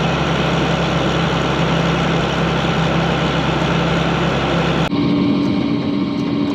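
Combine harvester engine running steadily. About five seconds in it cuts abruptly to a different engine sound with a steady hum.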